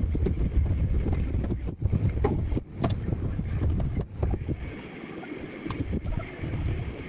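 Rumbling workshop noise with scattered clicks and knocks as work goes on at a CNC plasma table. The rumble drops away about four and a half seconds in.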